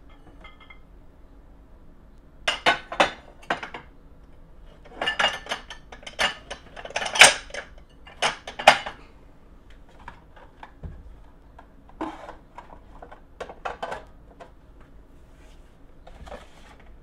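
Dishes and glassware clinking and knocking as they are set down and stacked on kitchen cabinet shelves. A quick group of sharp clinks comes a few seconds in, the loudest run in the middle, and lighter scattered knocks after it.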